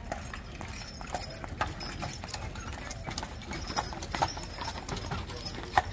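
Pair of draft horses' hooves clip-clopping on an asphalt street as they pull a carriage past, in uneven strikes a few times a second.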